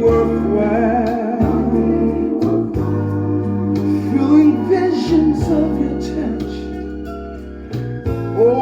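A band playing with a lead singer: a wavering vocal melody over held bass notes, with drum hits at a steady beat.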